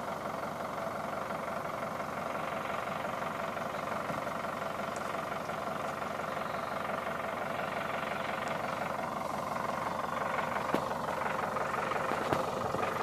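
Engine of the truck carrying a hydraulic post driver, idling steadily, with a couple of light knocks near the end.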